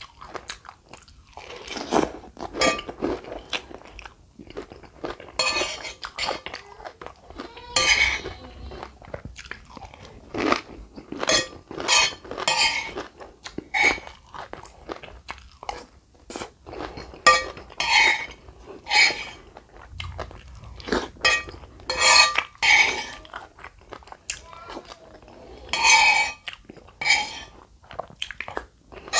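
Close-miked mukbang eating sounds: chewing and crunching a mouthful of lontong padang with gulai curry, in irregular bursts, with a spoon now and then scraping and clinking on the plate.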